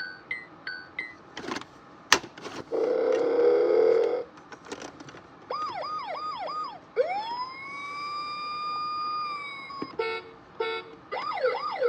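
Electronic sound effects from a VTech toy steering wheel: button clicks and short beeps, a buzzy blast, then a siren. The siren comes first in quick up-and-down sweeps, then as one long tone that rises and holds, then beeps and more quick sweeps near the end.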